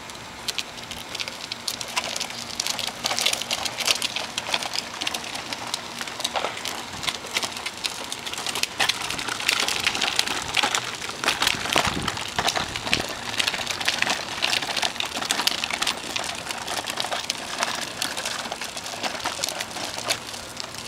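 Hard plastic wheels of a child's toy tricycle rolling over rough asphalt: a continuous crackling rattle of small clicks.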